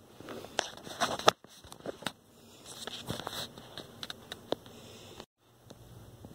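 Kittens moving about on a hardwood floor and among curtains: irregular light taps, clicks and rustling, twice broken by a brief gap.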